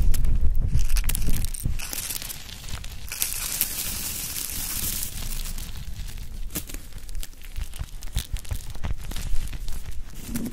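Irregular crackling and crinkling noise with many scattered clicks. A low rumble is loud at the start and fades within the first two seconds, and a brighter hiss swells a few seconds in.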